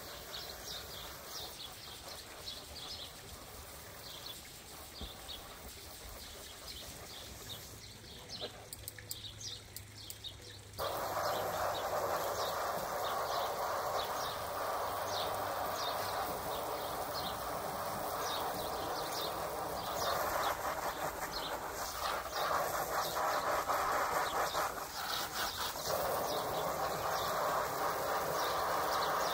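Garden hose spraying water onto an inflatable hot tub's vinyl cover, a steady hiss that suddenly gets louder about eleven seconds in. Birds chirp throughout.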